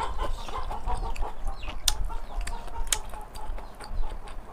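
Chickens clucking, with two sharp clicks about a second apart.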